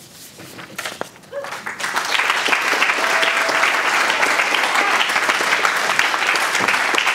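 Audience applauding: quiet at first, then the clapping swells in about two seconds in and carries on steadily.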